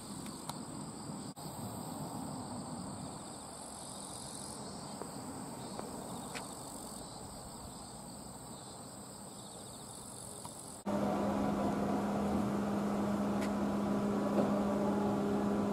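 Insects chirring steadily in one high, even tone over a low outdoor hiss. About eleven seconds in the sound cuts abruptly to a louder, steady low machine hum.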